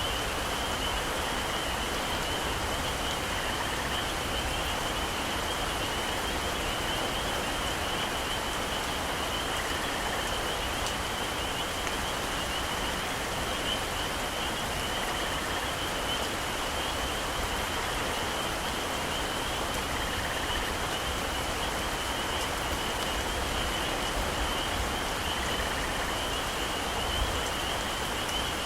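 Heavy rain falling steadily in a tropical forest, an even hiss with no let-up. A steady high-pitched chorus of animals sounds through it, with a faint call repeating about every five seconds.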